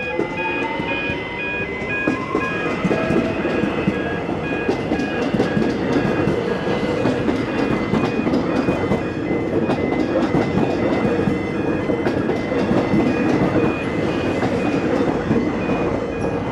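Electric suburban train passing close by, its wheels clattering over the rails and its motors whining up in pitch over the first two seconds. A high repeating electronic beep sounds throughout.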